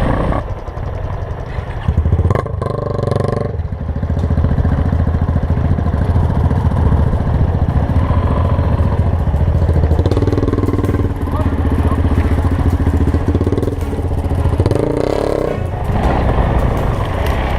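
Yamaha Ténéré 250 single-cylinder four-stroke motorcycle engine running under load while riding, easing off and picking up again a couple of times.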